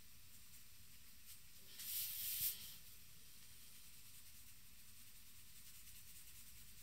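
A brief rustling swish about two seconds in, as a sheet of drawing paper is slid and turned on a desk. Otherwise only a faint, steady hiss.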